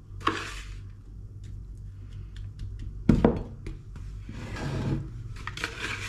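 A spoon scraping crumbly cake mixture out of a mixing bowl onto a plate. About three seconds in there is one loud thunk as the bowl is set down on the table, followed by more scraping and handling of the bowl and crumbs.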